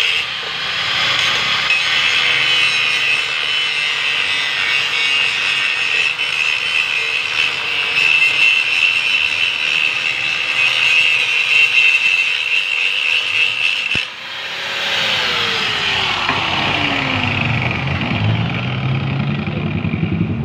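Power grinder grinding down an aluminium weld bead to finish a repaired hole, a loud steady grinding hiss over the motor's steady hum. About two-thirds through there is a sharp click, and the motor's pitch then falls away as it winds down.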